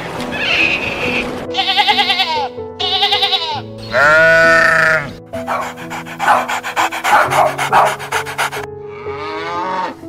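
Bleating livestock over background music: two quavering bleats, then a louder long call about four seconds in, followed by a fast, even run of short sounds and a falling call near the end.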